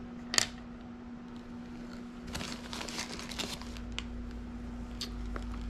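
Small charms and their packaging being handled: a light click, then a short stretch of crinkling about two and a half seconds in, and a couple more light clicks, over a steady low hum.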